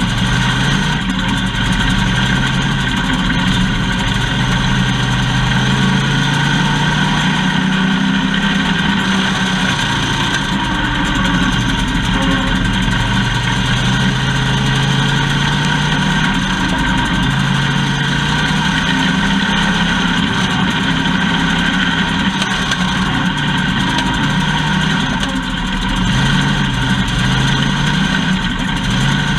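Race car engine running at speed, its pitch climbing for several seconds and then dropping back, again and again.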